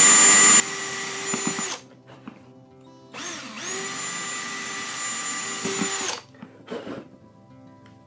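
Cordless drill running twice, boring two holes through a switch plate. The first run stops about a second and a half in. The second starts about three seconds in and lasts about three seconds, its motor whine winding up at the start and down at the end.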